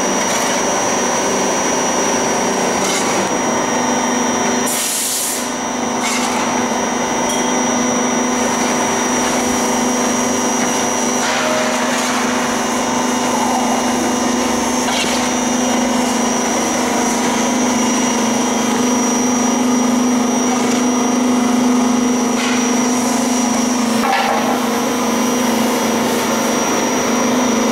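Screw oil press running steadily while pressing nigella (black seed) seed, a constant mechanical hum with a fixed pitch. A few short scrapes of a metal shovel through the pressed seed cake stand out above it.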